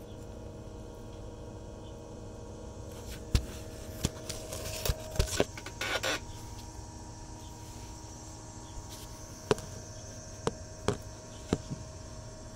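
Handling noise from a handheld camera being moved around under a truck: a cluster of sharp knocks and a rubbing, scraping noise about a third of the way in, then a few more single knocks, over a steady low hum.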